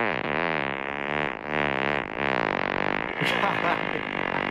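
A long drawn-out fart that starts abruptly: one unbroken, low, buzzing tone that wavers up and down in pitch.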